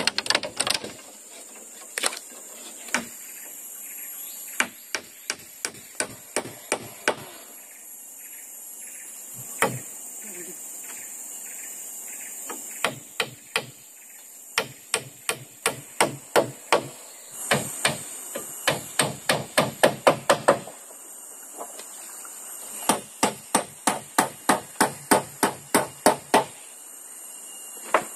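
Hammer driving nails into a fence, struck in runs of sharp blows of about two to four a second, with short pauses between runs; the hardest blows come near the middle.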